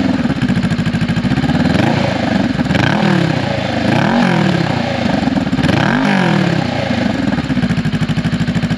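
Honda Rebel 500's 471 cc parallel-twin engine, breathing through a Coffman's Thunder slip-on exhaust with its included silencer installed, is revved in four quick throttle blips and then settles back to a steady idle near the end.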